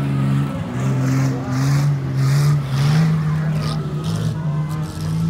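Vintage saloon race cars running on a dirt sand track, engine note holding steady with a few sudden steps in pitch as they slide through the bend, tyres throwing up loose dirt in hissing spurts.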